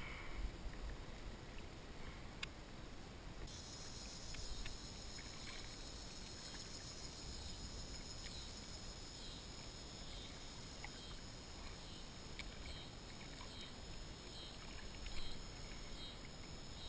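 Quiet water sounds and small knocks around a kayak hull, with a high, pulsing chirr joining a few seconds in and repeating about twice a second.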